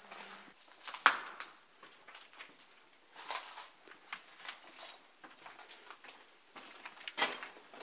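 Footsteps crunching and scraping over debris on a hard floor, irregular and uneven, with the sharpest crunch about a second in and another near the end.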